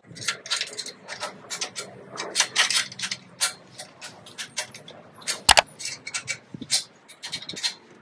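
A spanner clicking and clinking on the bolts of a wood chipper's hopper as they are tightened, a quick irregular run of short metallic clicks with one sharper knock about five and a half seconds in.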